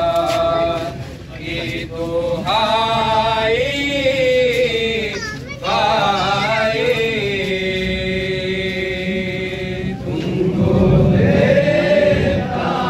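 Unaccompanied men's voices chanting a nauha, a Shia lament for Muharram, in long held notes that waver and glide. A low rumble runs under the voices during a louder passage near the end.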